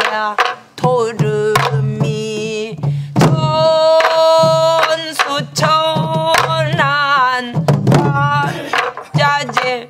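A woman sings in Korean pansori/Namdo style, holding long notes with a wide wavering vibrato. She accompanies herself on a soribuk barrel drum, striking it with a wooden stick and her bare palm, and the sharp drum strokes punctuate the song.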